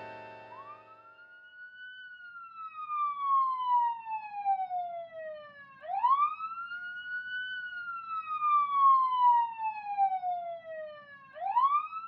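Police siren sounding a slow wail: the pitch climbs quickly, then slides down gradually over about four seconds, and the cycle repeats, rising a third time near the end.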